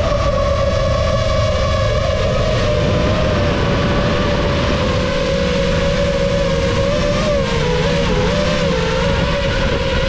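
FPV quadcopter's motors and propellers whining steadily, the pitch wavering up and down with the throttle about three-quarters of the way through, over a low rush of air.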